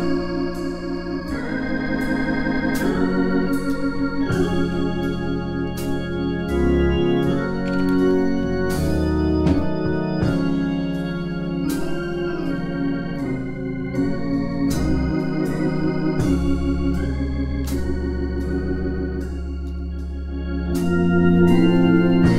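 Organ playing slow sustained chords over held bass notes, moving to a new chord every second or two, with a wavering vibrato on the held notes.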